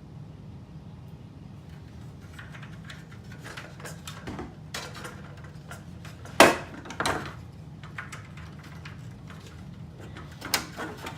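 Hard plastic game parts being handled and fitted into a CROSSFIRE game board: a series of clicks and knocks, with the loudest sharp snap about six seconds in and a few more clicks near the end.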